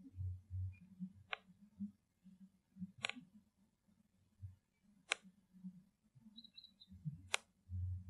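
Four sharp clicks, about two seconds apart, in a quiet outdoor field recording, over a low, broken rumble.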